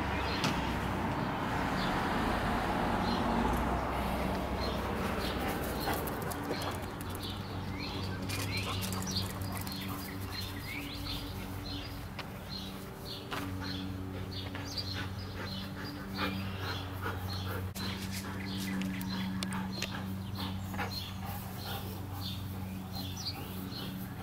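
Outdoor ambience of small birds chirping repeatedly throughout, over a low steady hum. A broad rushing noise fills the first few seconds.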